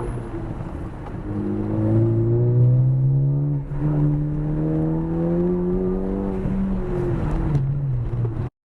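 Ford Focus ST's turbocharged four-cylinder engine accelerating under load, its pitch rising, dipping briefly about a third of the way in, then rising again before falling off as the car slows. The sound cuts out abruptly just before the end.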